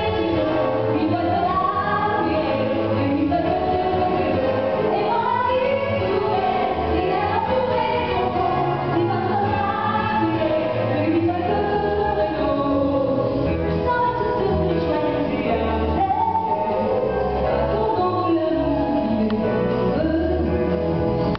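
Stage musical number: voices singing a melody over loud music with a repeating bass line.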